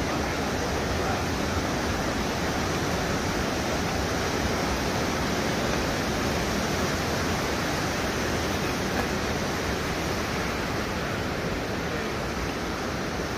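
Steady, even rushing of fast-flowing water, unbroken throughout.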